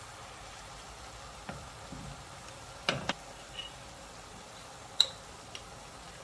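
Stir-fried noodles with vegetables and duck sizzling softly in the pan, with a few knocks of a wooden spatula against the pan: two close together about three seconds in, then a sharp click about five seconds in.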